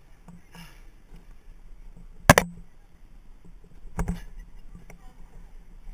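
Knocks during an abseil down a building wall, on rope and harness: one sharp knock about two seconds in and a softer one about four seconds in, over a quiet background.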